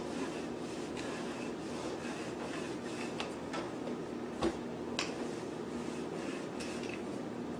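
Wooden rolling pin rolling back and forth over bread dough on a floured wooden counter, a soft repeated rubbing and rustling over a steady room hum, with two light knocks of the pin against the counter about halfway through.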